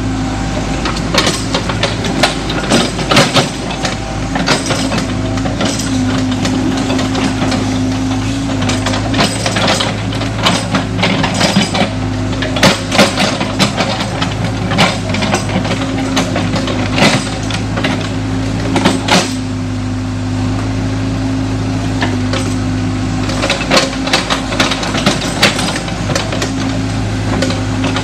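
Crawler excavator's diesel engine running steadily under load while it digs, with frequent sharp knocks and clanks from the bucket and boom working the soil.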